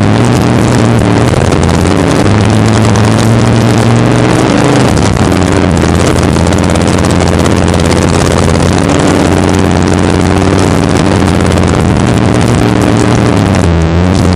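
Racing jet boat's engine running hard at speed, loud and continuous, under a heavy rush of wind and water spray. The engine note dips about five seconds in and climbs again a few seconds later.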